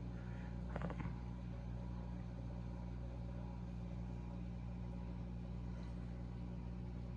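Steady low electrical hum of a running reef aquarium's pumps and equipment.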